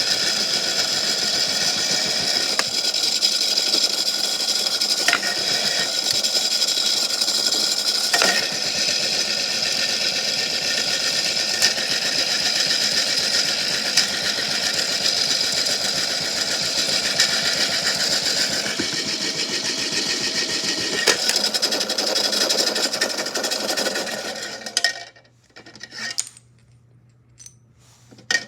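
A small motor-driven toy washing machine running, with rocks and shells rattling inside it and occasional sharp clicks. It stops abruptly about 25 seconds in, leaving a few separate knocks.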